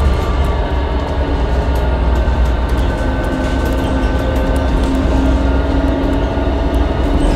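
Inside a 2012 New Flyer C40LF transit bus under way, its Cummins Westport ISL G natural-gas engine running with a deep, steady rumble. A faint steady whine comes in about three seconds in.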